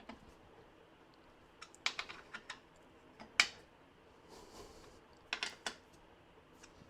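Scattered light clicks and taps of small metal parts and hand tools being handled while a shim is fitted and screws are tightened to close a gap under a surface grinder table. The clicks come in small clusters about two seconds in, once more sharply about three and a half seconds in, and again near the end.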